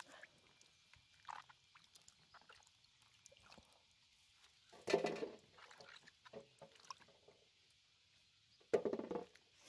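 Water sloshing and small splashes as apples and oranges are rubbed and turned by hand in a bucket of water. Two short animal calls about four seconds apart, one near the middle and one near the end, are the loudest sounds.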